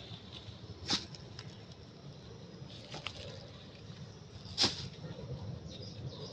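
Three sharp crackles of dry leaf litter, about a second in, about three seconds in and loudest near the end, with a few fainter ticks, as monkeys shift and groom on the leaves, over a steady low outdoor rumble.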